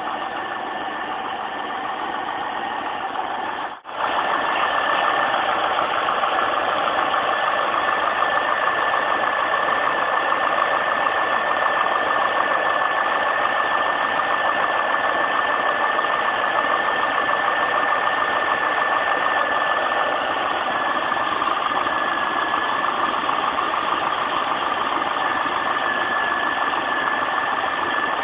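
Chevrolet Corvette C5's V8 engine idling, heard close to the open engine bay as a steady whirring hiss with a constant high hum, with a brief break about four seconds in.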